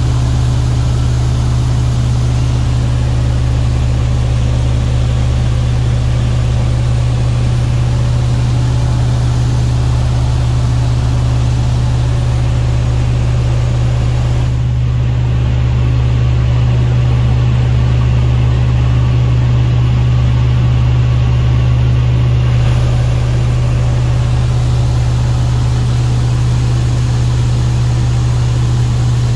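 Engine and propeller of a PJC-2 Harlow light aircraft droning steadily in flight, heard inside the cabin. The tone gets slightly louder and duller for several seconds in the middle.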